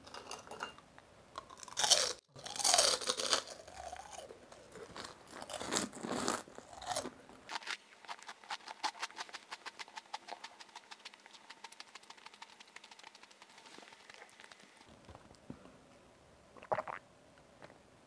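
A person chewing crunchy food close to a clip-on microphone. There are louder bites and mouth sounds in the first few seconds, then a long run of fast, even crunches, and a short sharp knock near the end.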